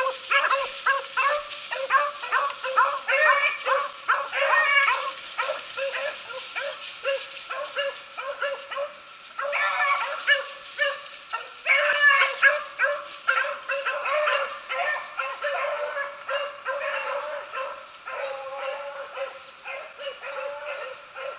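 Beagles baying on a rabbit's trail: overlapping yelping barks, several a second, from more than one dog, the pack running the rabbit by scent. The chorus eases off a little near the end.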